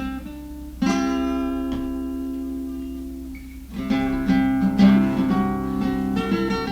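Acoustic guitar: a chord strummed about a second in and left to ring out, then steady rhythmic strumming from about four seconds in. A low hum runs underneath.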